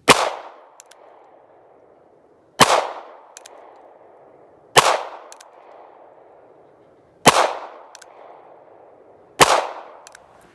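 Five single shots from a North American Arms .22 rimfire mini-revolver fired one-handed, spaced about two and a half seconds apart, each a sharp crack with a short ring-out. A light double click follows each shot, the single-action hammer being cocked for the next round.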